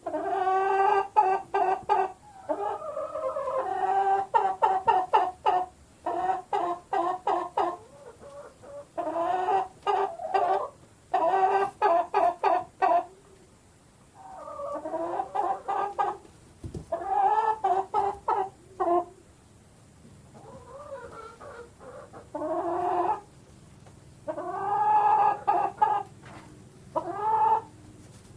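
Hens clucking: bursts of quick clucks, several a second, alternating with longer drawn-out calls.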